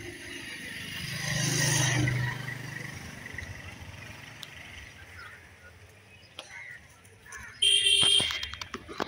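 Street traffic: a motor vehicle passes by, swelling and fading about a second in, then a short horn beep near the end.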